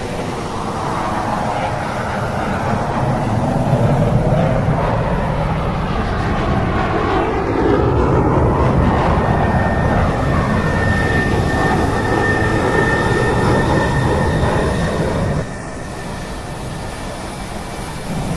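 Aircraft towing tractor working under the load of an airliner, a steady heavy engine drone with slowly sweeping higher tones. A thin high whine joins about ten seconds in, and the sound drops suddenly to a quieter drone about fifteen seconds in.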